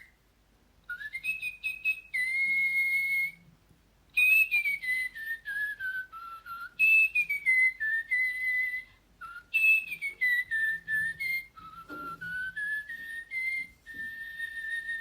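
Electronic talking toy bird whistling a tune through its small speaker: a single whistled line that slides down and up in pitch in four long phrases with short breaks between them.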